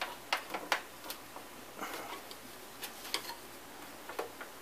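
Scattered light clicks and taps at irregular intervals as a dented perforated metal speaker grill cover from a portable TV-stereo is handled and pressed by hand to work the dent out.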